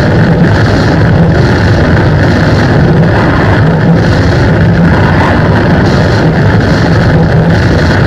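Heavily distorted electric guitar played through an effects pedalboard: a loud, dense, sustained wall of sound with a brighter pulse about once a second.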